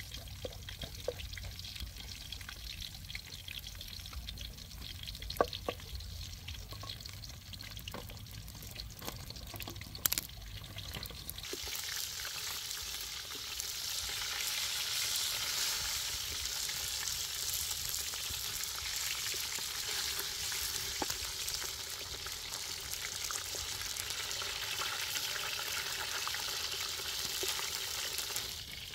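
Whole fish frying in hot oil in a steel wok, a steady sizzle that grows much louder a little under halfway through, with a few sharp knocks of a wooden spatula against the pan in the first half.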